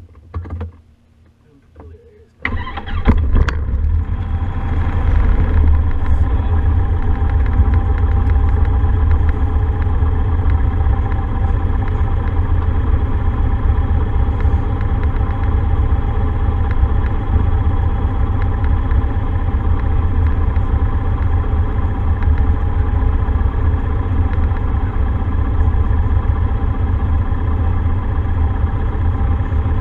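Cessna 150's four-cylinder Continental O-200 engine starting about two and a half seconds in, catching with a few sharp coughs, then settling into a steady idle. Heard from inside the cockpit.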